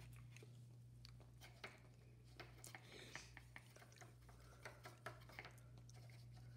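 Near silence: faint, scattered small taps and clicks of a paintbrush working on a plastic paint palette while purple paint is mixed, over a low steady hum.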